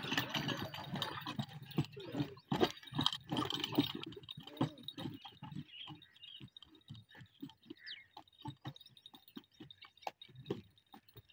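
Hoofbeats of a bull running round a circular dirt pit, harnessed to a beam that turns on a central post: a quick, uneven patter of hoof strikes, louder and denser in the first few seconds and lighter after.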